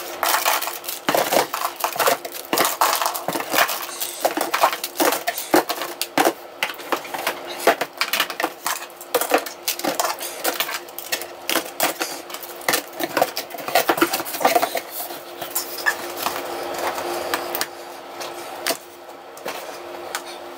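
Plastic toy belts and gadgets clattering and knocking as they are set and shuffled into a cardboard box: irregular clicks and knocks throughout, over a faint steady hum.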